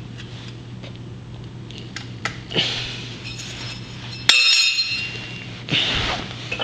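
Welded aluminium plate being handled, with light clinks and one sharp metallic clink about four seconds in that rings briefly. A steady low hum runs underneath.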